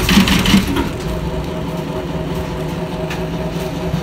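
Semi-automatic carton box stitching machine running with a steady hum, with a short clatter in the first second and a fainter one near the end.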